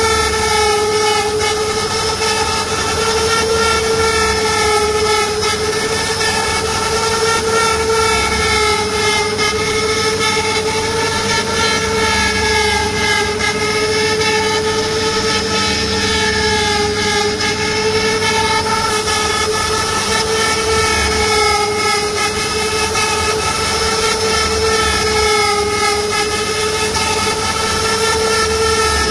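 CNC router spindle whining steadily as its small carving bit cuts a relief pattern into wood. The pitch wavers slightly up and down.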